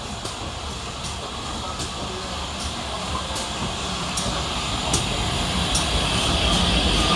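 GWR Hall class 4-6-0 steam locomotive 6989 Wightwick Hall drawing slowly past close by, its low rumble and a steam hiss growing louder as it comes alongside. A faint regular tick sounds about every three-quarters of a second.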